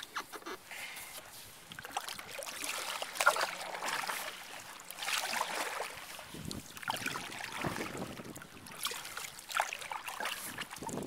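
Kayak paddle strokes: the blades dipping and pulling through the water, with splashing and dripping that swell and fade every couple of seconds.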